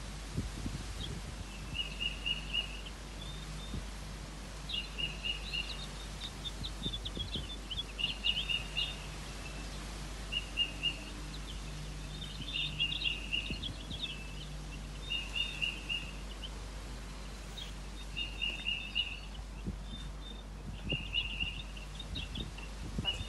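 Songbird calling: a short phrase of quick pulsed notes, repeated about every two to three seconds, with scattered higher chirps in between.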